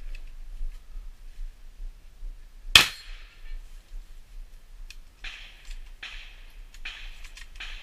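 A single close gunshot, sharp and loud, about three seconds in, with a short ringing tail. A few softer rustling noises follow later.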